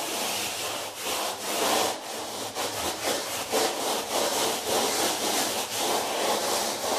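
Sponge float rubbed in small circles over a damp hydraulic-lime skim coat, a repeated rasping scrub that swells about twice a second as the sponge evens out the surface.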